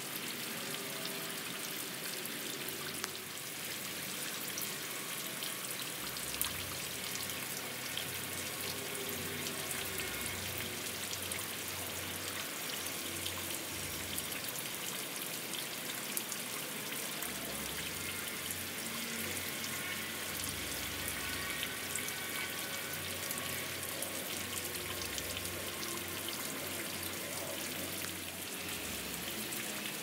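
Steady rain falling, a continuous hiss with many sharp ticks of individual drops scattered throughout.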